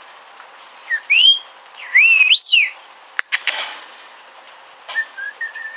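Rainbow lorikeet whistling: two rising-and-falling whistled notes, the second one loud and twisting. A short harsh burst follows, and near the end a faint, slightly wavering held note.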